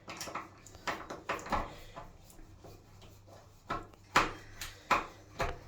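Small screws being undone from a shower wall outlet: irregular clicks and light knocks of the tool and metal parts, with a few sharper clicks in the second half.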